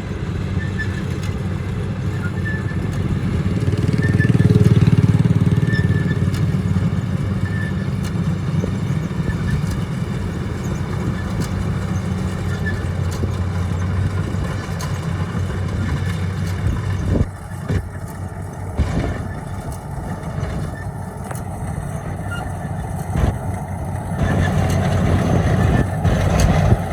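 Rice harvester engine running steadily with a low drone that swells for a couple of seconds about four seconds in. Several sharp knocks and clatters come in the second half.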